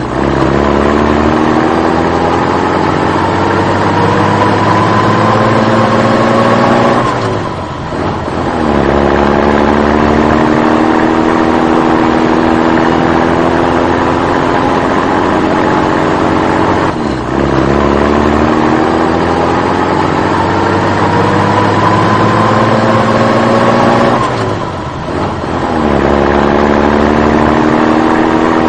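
An engine revving slowly up in pitch for about seven seconds, then dropping back and climbing again, three times over: the same engine sound repeated as a loop.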